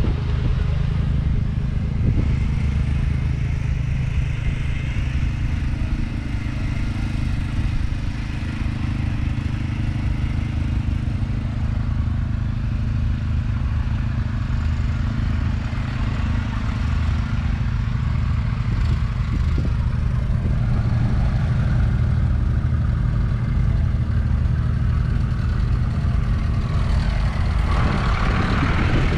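An engine running steadily at one constant speed, a low even hum that holds unchanged throughout.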